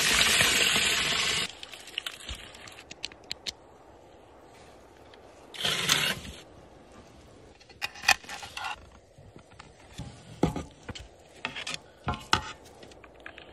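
Aluminium foil trays scraping and crinkling across a smoker's metal grate: one long scrape at the start, a shorter one about six seconds in, then scattered clinks and taps.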